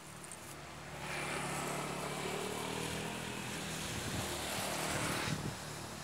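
An engine running past unseen: its sound swells about a second in, holds with a slightly falling pitch, then drops off suddenly about five seconds in.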